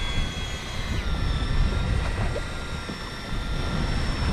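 Boat's outboard motor running steadily with a thin high whine that steps down slightly in pitch about a second in, over a heavy low rumble of wind on the microphone.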